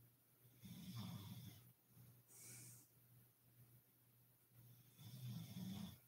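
Woman snoring in her sleep, mouth open: two rattling snores about four seconds apart, with a breathy hiss of exhaled air between them.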